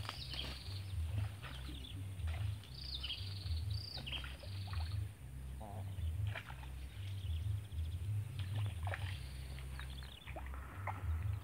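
Birds chirping in short, quick calls, scattered throughout, over a steady low rumble.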